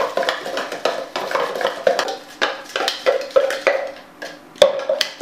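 A spoon stirring icing sugar and milk in a plastic measuring jug, clicking against the sides in quick, repeated strokes, with one sharper knock near the end.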